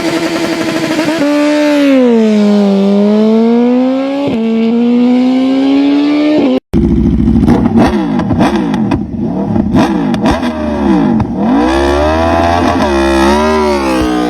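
Motorcycle engines revving, the pitch sagging and climbing with the throttle. About six and a half seconds in the sound cuts off abruptly and another engine takes over, its revs wavering up and down quickly.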